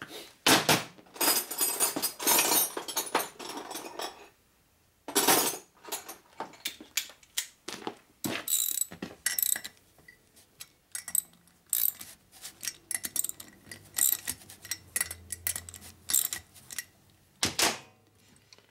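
Small metal parts and hand tools clinking and clattering: nuts and washers being handled and run down onto the cylinder-head studs of a shovelhead engine. The clicks come irregularly, with a couple of denser rattling stretches.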